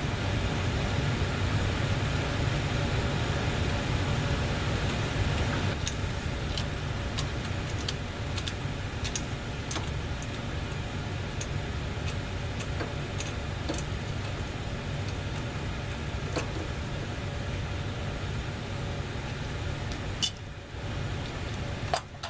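A steady low hum runs throughout, with scattered light clicks and taps of hand tools and screws on the water heater's metal housing.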